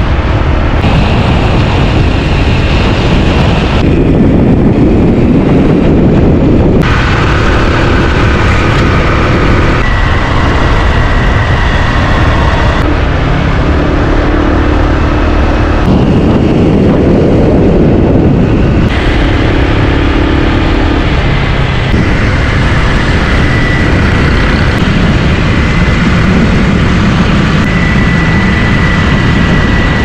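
Loud, steady wind rush over the microphone of a camera moving at riding speed alongside road bicycles, with road noise underneath; the sound changes abruptly every few seconds.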